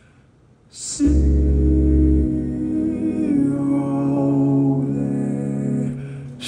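A male singer holds a long sung note over sustained keyboard chords with a deep bass note. After a fairly quiet pause, they come in together about a second in, and a new chord starts right at the end.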